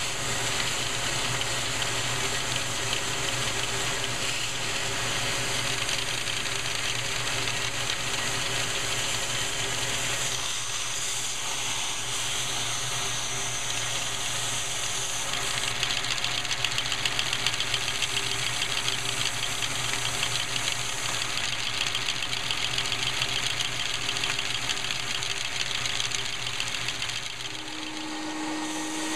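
Handheld vacuum cleaner running with its nozzle on the intake of a Lego three-cylinder vacuum engine, the suction driving the engine's plastic pistons and valves in a fast, steady rattle under the vacuum's whir. It gets louder about halfway through; near the end it drops away and a different, deeper motor hum starts.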